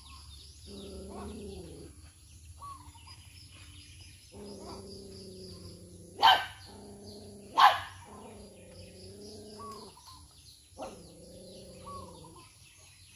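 Dog growling in low, drawn-out spells of a second or two each while guarding its food from a rooster, with two short, loud barks about a second and a half apart near the middle. Small birds chirp throughout.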